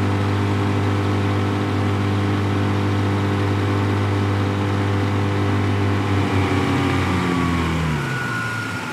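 Mercury 15 hp outboard motor running steadily at planing speed with four adults aboard, then throttled back about seven seconds in, its pitch falling as the boat slows.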